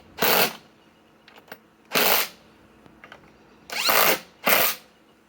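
Four short bursts from a cordless RIDGID impact tool, each about half a second long, setting 5-inch ledger lock screws a little way in to start them.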